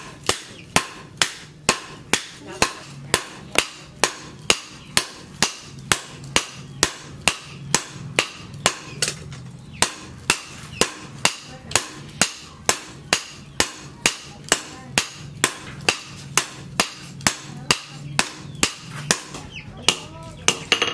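Hammer blows on a red-hot leaf-spring steel billhook blade lying on a steel post anvil, about two strikes a second in a steady rhythm, each with a short metallic ring. A faint low hum runs underneath.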